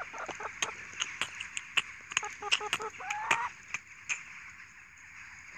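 Brown hens pecking at a phone: a quick, irregular run of sharp taps that stops about four seconds in, with soft clucks and one rising squawk about three seconds in.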